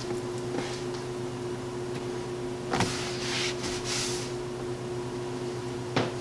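Steady electrical hum of an appliance in the room. About three seconds in, a knock is followed by about a second of rustling as a towel is wiped over a wooden cutting board. Another knock comes near the end.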